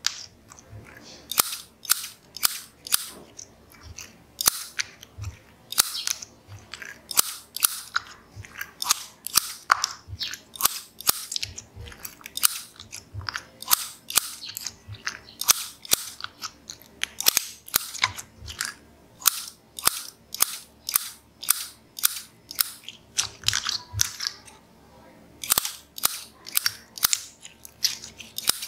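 Scissors repeatedly snipping through a thick, glossy slime, a sharp crisp snip about once or twice a second. There are short pauses about four seconds in and again near the end.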